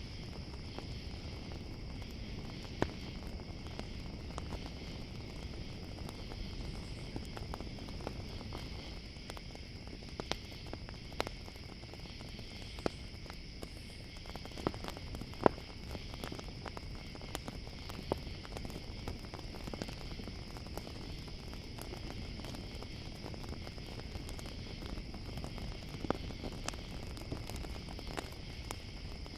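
Campfire crackling, with scattered sharp pops (the loudest about halfway through), over a steady high chirring of crickets.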